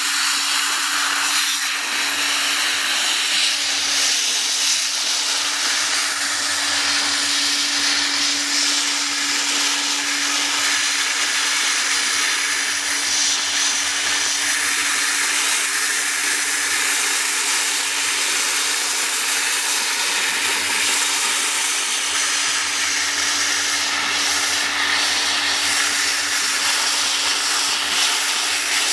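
Dry-ice blasting gun's compressed-air jet hissing steadily as it blasts a car A/C compressor clean, with a steady low hum underneath.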